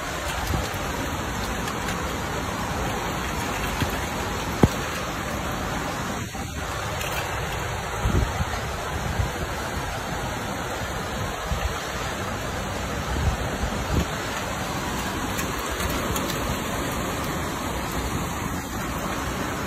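Rain falling steadily, with occasional low rumbles of wind buffeting the microphone. There is a single sharp click about four and a half seconds in.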